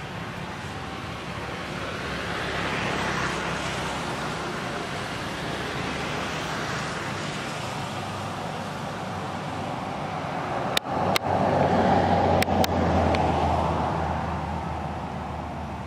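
Motor traffic noise with a vehicle passing, its engine hum swelling to its loudest about eleven to thirteen seconds in. Four sharp clicks come just as it peaks.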